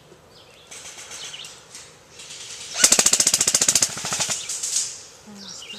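Airsoft gun firing a rapid full-auto burst: a fast, even rattle of shots lasting about a second and a half, starting about halfway through, with fainter shots from farther away before it.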